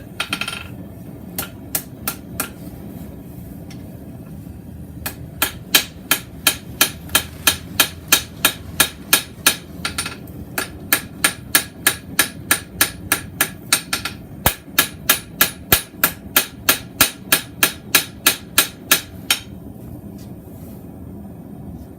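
Blacksmith's hand hammer striking mild steel bar stock on an anvil, straightening the forged spade-shaped blade. A few blows come first, then a pause, then two long runs of even strikes at about three a second, each strike ringing. The hammering stops a couple of seconds before the end.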